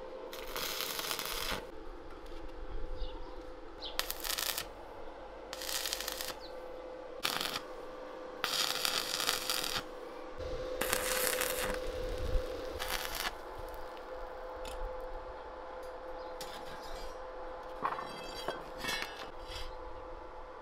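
Stick (arc) welding of steel rebar with a small inverter welder: about seven bursts of sizzling arc crackle, each from a fraction of a second to about one and a half seconds long, over a steady faint hum. In the last few seconds the arc is off and only a few light clicks and knocks are heard.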